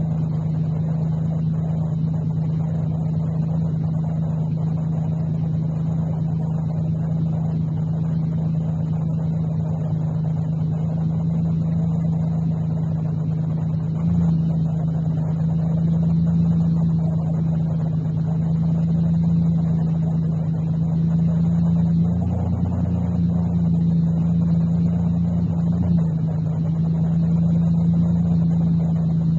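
Ford Ranger's 4.0-litre V6 engine running at a steady speed with a constant exhaust drone. The tone shifts slightly about halfway through and again about three quarters of the way through.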